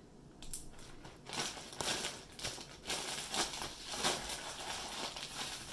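Plastic Ziploc bag crinkling in irregular bursts as crumbly egg-noodle dough inside it is squeezed and kneaded by hand, pressing the dry crumbs together into one dough.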